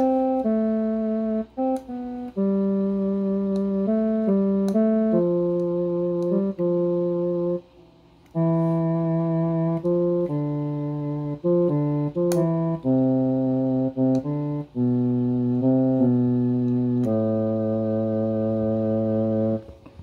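Casio WK-245 digital keyboard being played on one of its tones: a slow run of held notes and chords, each changing every second or so, with a short break about eight seconds in.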